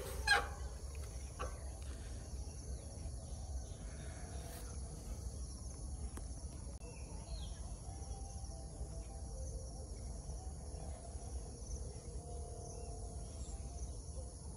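Outdoor rural ambience: insects chirring steadily in two high bands, over a low rumble. A couple of sharp clicks come right at the start.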